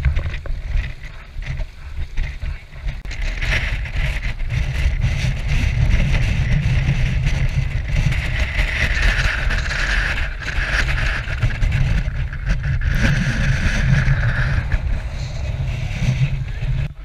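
Wind buffeting the action camera's microphone in a heavy, fluttering rumble, over the hiss and churn of hot-tub jets bubbling the water.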